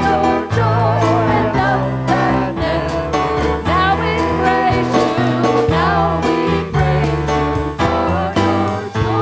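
Congregational worship music: a singer with a band playing a steady bass line and held chords.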